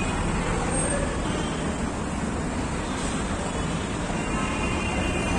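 Steady street traffic noise: an even, continuous din of passing vehicles with no distinct events.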